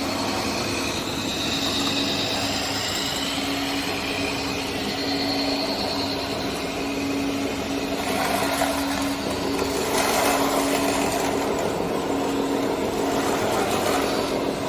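Small electric motors and gearboxes of RC construction models running, a steady hum with a higher whine that comes and goes in the first half.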